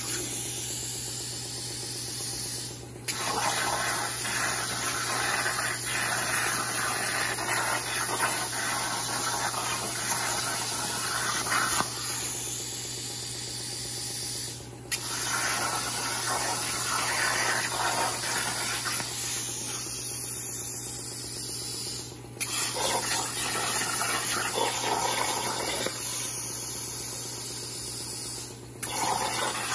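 Hypertherm 65XP plasma cutter on a CNC table, its arc hissing steadily as it cuts sheet steel. The hiss breaks off briefly four times, where the arc stops at the end of one shape before piercing the next.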